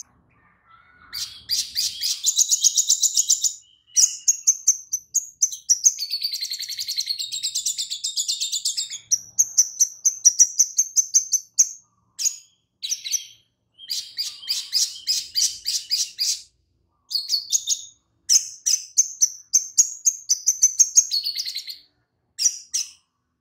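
Male olive-backed sunbird (sogon) singing: fast, high chattering trills in a run of phrases separated by short pauses. The song is taught with lovebird calls ('isian lovebird').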